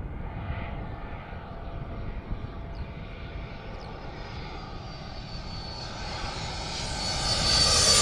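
Gulfstream business jet on approach with its landing gear down, its turbofans giving a low rumble and a high whine. The sound grows steadily louder over the last couple of seconds as the jet comes in low toward overhead.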